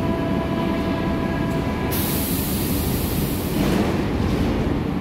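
Berlin U-Bahn F-type train running along the station platform: steady low rumble of wheels on rail, with a few steady whining tones for the first two seconds, then a high hiss for about a second and a half.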